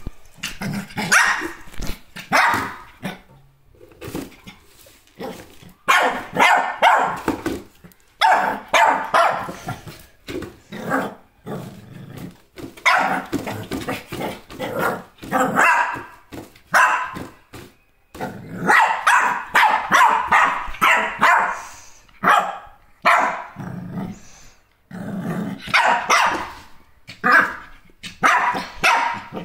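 Shih Tzu barking repeatedly at a cardboard box in play, sharp barks coming in quick runs separated by short pauses.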